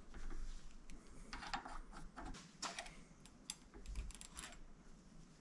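Irregular run of light metal clicks and rattles from hands working a Pittsburgh click-type torque wrench clamped in a vise: turning its adjuster at the handle end and fitting the wire hook of the hanging calibration weight.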